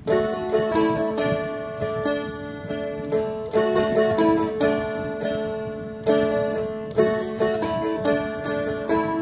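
Seagull Merlin M4, a four-string fretted dulcimer-style instrument, strummed with melody notes changing over a steady drone note. This is the D part of the verse with a short rundown in the melody.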